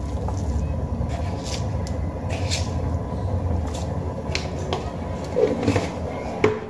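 Thick chana dal boiling in an open pan, thick bubbles bursting with irregular pops over a steady low rumble. A sharp knock near the end.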